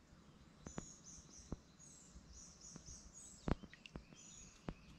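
A songbird calling in short, repeated high chirps over quiet outdoor background, with several sharp clicks or taps scattered through, the loudest about three and a half seconds in.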